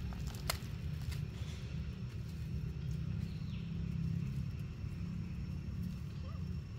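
Steady low rumble, with a few faint clicks and a brief faint falling squeak about three seconds in.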